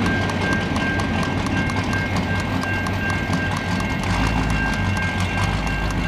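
Freight cars rolling past on jointed track. The steel wheels click rhythmically, about five or six times a second, over a low rumble, with a steady high-pitched wheel squeal.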